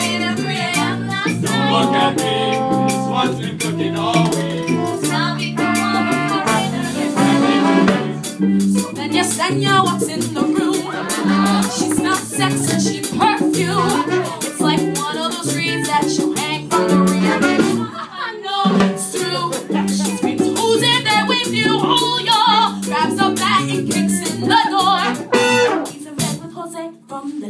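A live pit band with trombones and drums playing Latin-style music while a chorus of young voices sings. The music dips briefly about two-thirds of the way through and again near the end.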